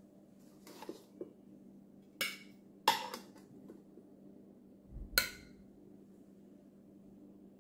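Metal tongs clicking against a Ninja Speedi's crisper tray and a plate while chicken breasts are lifted out: a handful of sharp clinks, the loudest about three seconds in, and a dull thump with a clink about five seconds in.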